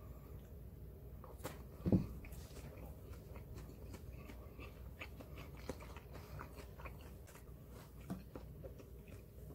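A person chewing raw yellowtail amberjack (hiramasa) sashimi, with faint wet mouth sounds and light clicks, and one louder thump about two seconds in.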